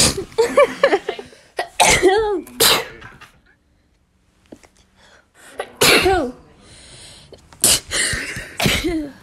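A person sneezing over and over: a run of sharp, loud sneezes, some with a voiced cry on them, broken by a quiet pause of about two seconds in the middle.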